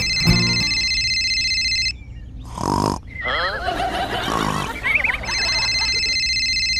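Cartoon snoring sound effect: a steady high whistle for about two seconds, then a short rasping snore, then a warbling, burbling stretch. The whistle and snore come round again near the end.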